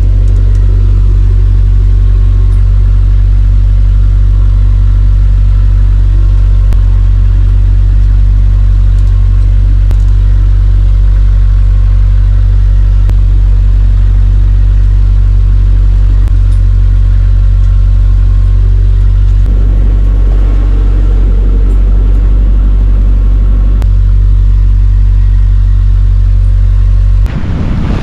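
A loud, steady low mechanical drone that holds unchanged and cuts off abruptly near the end.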